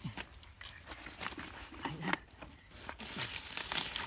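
Scattered small splashes, drips and rustles from hands working in shallow muddy water among plants, with a hissier spell of trickling or rustling near the end.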